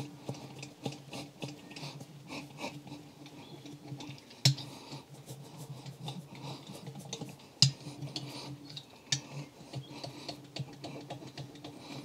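Hand roller stitching tool being rolled and pressed over a rubber tyre patch on the tyre's inner liner: light, irregular clicking and scraping, with a sharper knock at about four and a half seconds and again at about seven and a half. The stitching presses the patch's edges down and works the air out so it bonds.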